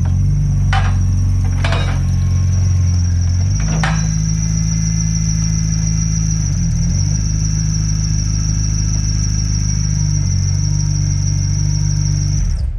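BMW S54 3.2-litre straight-six running under load on a rolling-road dyno, held at a steady engine speed with small shifts, the driven tyre turning on the rollers. A steady high-pitched whine sits above the engine note, and three sharp cracks come in the first four seconds.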